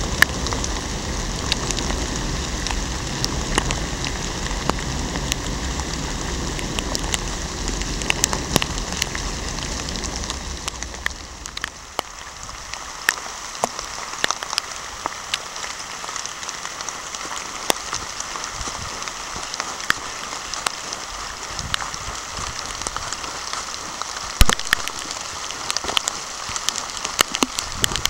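Steady rain, with many sharp ticks of raindrops striking close to the microphone. A low rumble under it for the first ten seconds or so then falls away.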